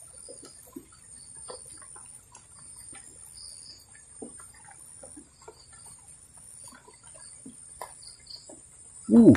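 Night insects such as crickets chirring steadily at a high pitch, with faint scattered ticks and small chirps. Just before the end a loud, short call falls in pitch.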